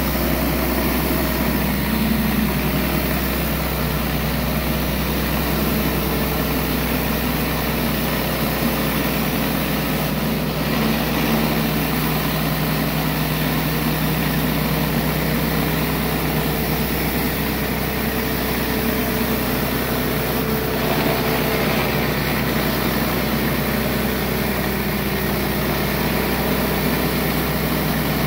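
Pressure washer running steadily, with the constant hiss of water blasting out of a 15-inch Surface Maxx surface cleaner's spinning spray bar onto concrete.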